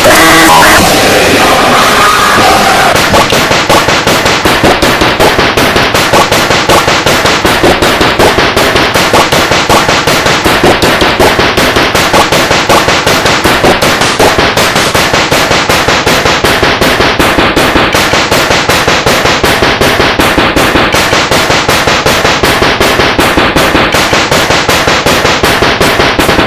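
Deliberately overloaded, heavily distorted meme audio at full volume: a harsh rattling noise pulsing several times a second, with no letup.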